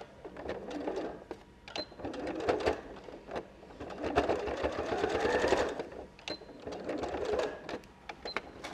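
Electric domestic sewing machine stitching a short line of tacking in several stop-start runs. The motor speeds up during the longest run, about four seconds in, and there are a few sharp clicks near the end.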